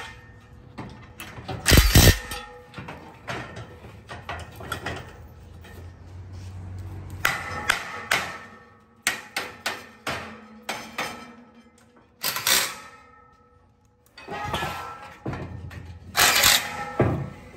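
Clanks and knocks of metal railing parts being handled and set down on a wooden workbench: a series of separate sharp impacts, the loudest about two seconds in, with quieter stretches between.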